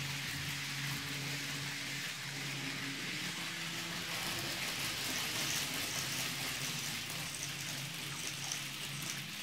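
Model trains running on a layout: a steady rushing hiss of small wheels on the track with a low motor hum underneath.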